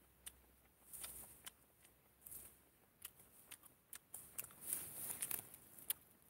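Faint crackling and rustling of a fresh, thick shiitake mushroom being torn apart by hand, with soft scattered clicks and a louder stretch of rustling a little before the end.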